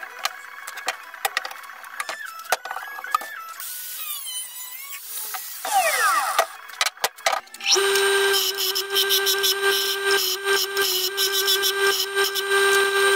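Clicks and handling noises, then about two-thirds of the way through a bench grinder is heard grinding a piece of steel, running steadily with a hum and a harsh, hissing grind.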